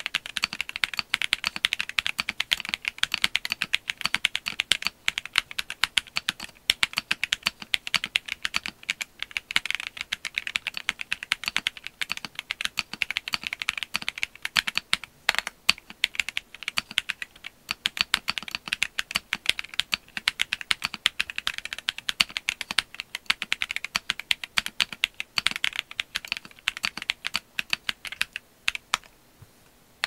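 Continuous fast typing on a stock, unmodified Monsgeek M1W mechanical keyboard fitted with Akko Piano V3 Pro switches and PBT OEM-profile keycaps: a dense stream of key clacks that pauses briefly just before the end.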